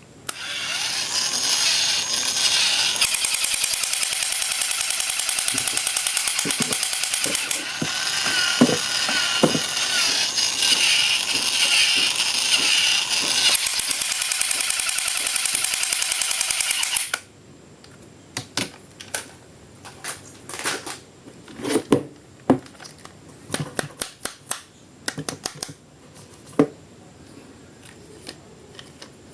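A loud, steady, drill-like buzzing that stops abruptly about two-thirds of the way through. It is followed by scattered light clicks and crinkles of a toy or its plastic packaging being handled.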